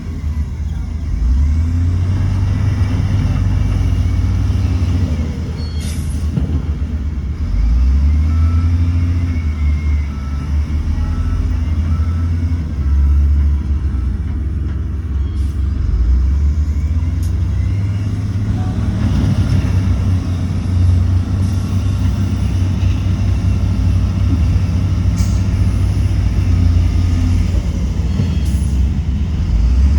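Heavy diesel engine of earthmoving machinery running under changing load: a deep rumble that swells and eases every few seconds, with a few brief high clicks.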